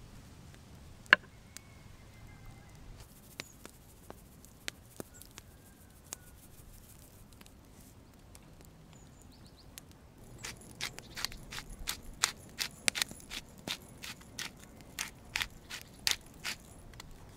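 Metal fork mashing butter with garlic and parsley on a wooden cutting board. Scattered clicks at first, then from about ten seconds in a quick run of taps, a few a second.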